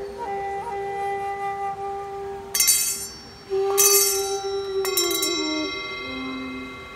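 A wooden flute plays a slow melody over a steady held drone note. In the middle, brass singing bowls are struck several times and ring on with many long overtones.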